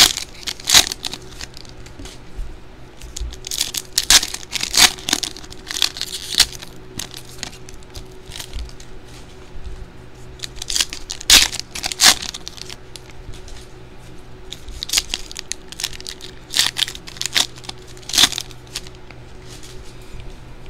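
Foil trading-card packs crinkling and being torn open by hand, in irregular bursts of rustling and ripping with short gaps between.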